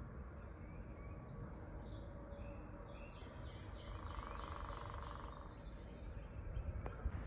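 Wild songbirds singing outdoors: scattered chirps and a run of quick repeated notes through the middle, over a steady low rumble.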